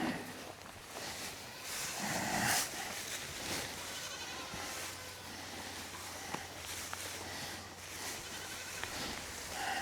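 Goat bleating, with one loud call about two seconds in and another near the end, over the rustling and small knocks of livestock at a fresh hay bale.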